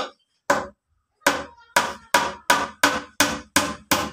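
Hammer blows on a plywood panel: two strikes, a short pause, then a steady run of about three blows a second.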